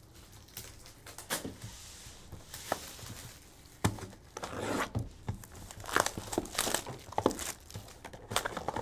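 Hands tearing open a sealed Topps Star Wars Signature Series trading-card box: cellophane wrap and cardboard tearing and crinkling in irregular rustles, with a sharp tap about four seconds in.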